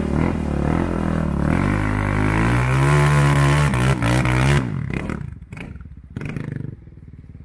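Quad (ATV) engine revving as it spins through mud: the pitch climbs over about a second, holds, then cuts back sharply about four and a half seconds in, leaving a quieter, uneven engine with a few knocks.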